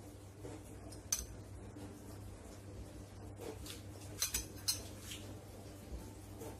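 Light clinks of glassware and a utensil: one sharp clink about a second in, then three more close together around four to five seconds in, over a faint steady hum.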